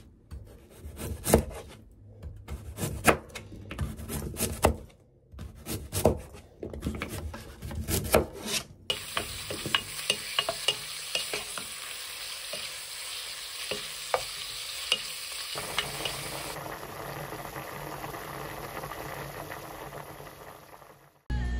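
A kitchen knife chopping radish on a cutting board in irregular knocks; about nine seconds in, beef sizzles in a pot as a wooden spoon stirs it, and later beef-and-radish soup bubbles steadily at the boil before fading out near the end.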